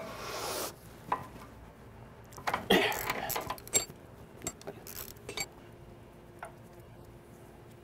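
Metal hand tools clinking and rattling against rusty brake hose fittings while a ratchet and socket work the old brake flex hose loose from the caliper. A short rasping rush comes near the start, a cluster of clanks about two and a half seconds in, and then scattered single clicks.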